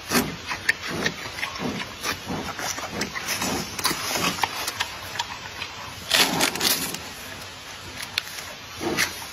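Giant panda chewing and crunching bamboo: low chomps about twice a second, with sharp cracks and splintering of the stalks, and a louder burst of cracking about six seconds in.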